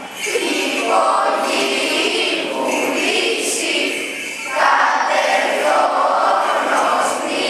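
A choir of children and teenagers singing an Orthodox Good Friday hymn of the Epitaphios service together, unaccompanied, in long phrases with a short break about four and a half seconds in.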